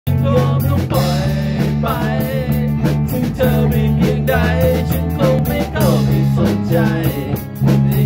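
A live rock band playing: electric guitar and drum kit with a steady beat, and a man singing over them.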